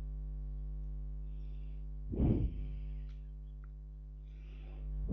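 Steady electrical mains hum, about 50 Hz with a ladder of overtones, picked up by the recording microphone. A short puff of noise about two seconds in and a fainter one near the end.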